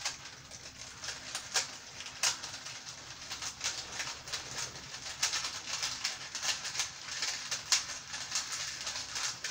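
Irregular light clicks and rattles, a few a second, from a small object handled in someone's hands, over a faint steady hum.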